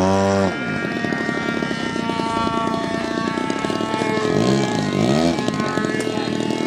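Engine of a radio-controlled lawnmower-shaped model airplane running steadily in flight, with propeller drone. Its pitch swells up and back down briefly at the start and twice more about four to five seconds in.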